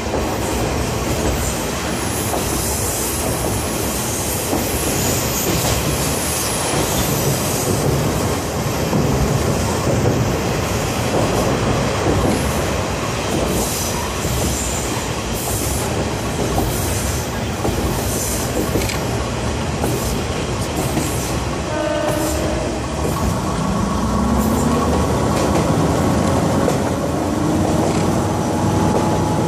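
KiHa 52 diesel railcar running, heard from on board: a steady rumble of wheels on rail with clicks from the rail joints. About three-quarters of the way through, a tone rises in pitch and then holds steady.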